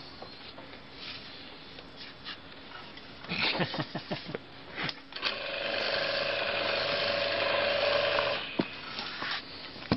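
Clattering knocks of a heavy power tool and its hook being handled, then a motor runs steadily for about three seconds with an even hum, and a few more knocks follow.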